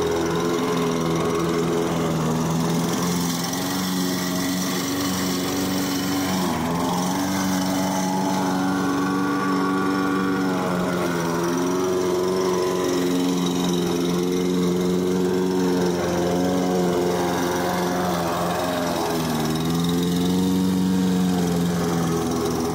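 Small lawnmower engine running, its speed rising and falling unevenly rather than holding a steady pitch, with noticeable dips about three, six and nineteen seconds in.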